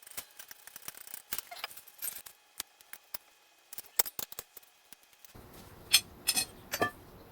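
Scattered light clicks and metal clinks of comic book rack parts being handled during assembly, with a few louder knocks near the end.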